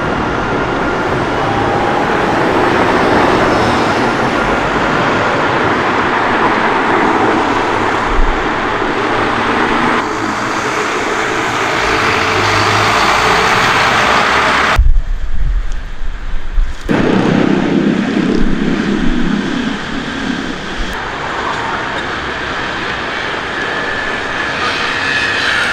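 Busy city street traffic: a steady wash of passing cars and engines. A little past halfway the sound changes abruptly, and a stronger low engine sound of a heavier vehicle runs for a few seconds.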